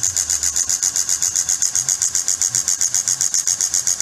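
Motor-driven Timken-type oil friction tester running lightly loaded, its test bearing turning against the block in an oil-filled cup. It makes a steady, high rhythmic pulsing about six times a second.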